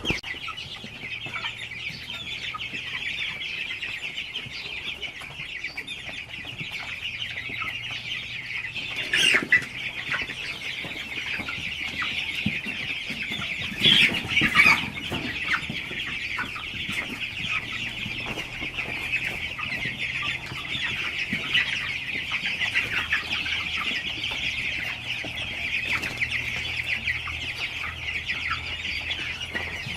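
A flock of chickens calling and clucking all at once in a dense, continuous chatter, with a few louder calls about nine seconds in and again around fourteen to fifteen seconds. A faint low steady hum runs underneath.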